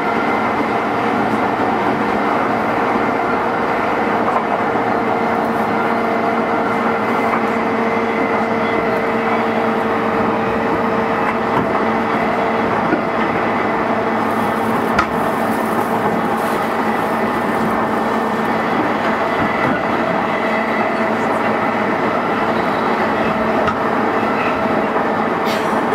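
JR E233-series electric commuter train running at a steady speed between stations: an even rumble of wheels on rail with a constant electric motor hum, and a few light track clicks about halfway through.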